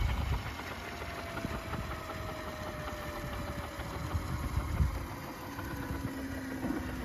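Electric drive and main rotor of a Roban 800 UH-1D Huey scale RC helicopter spooling down after landing: a motor and gear whine that slowly falls in pitch, over a low rumble, with a lower whine joining in the second half.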